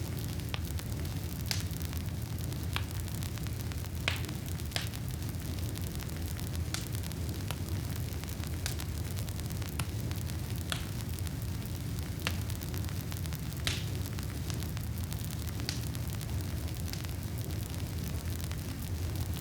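Campfire of burning wood: a steady low roar of flames with a hiss, and sharp crackles and pops from the wood every second or so.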